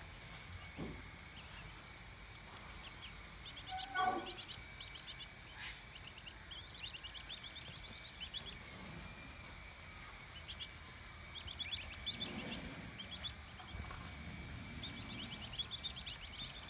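Australian wood duck ducklings peeping, in short rapid runs of high calls every few seconds, with one louder call about four seconds in.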